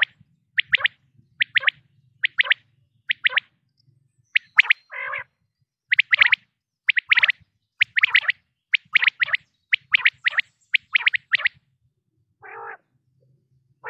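Common quail singing: its sharp, quick three-note 'wet-my-lips' phrase repeated over and over, about once a second. A few lower, harsher notes come about five seconds in and near the end.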